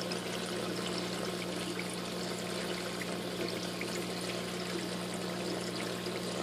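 Saltwater aquarium water splashing and trickling steadily where the flow churns the surface, bubbling more than usual because the tank's water level is low. A steady low hum runs underneath.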